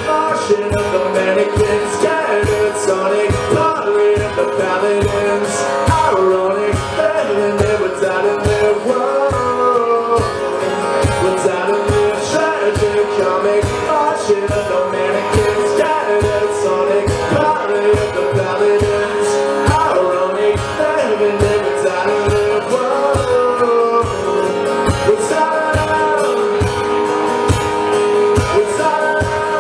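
Live acoustic guitar strummed with a man singing, over a steady low thump keeping the beat.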